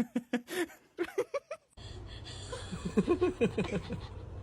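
A person laughing in short chuckling bursts. About two seconds in, the sound cuts abruptly to a steady low hum, with more laughter over it.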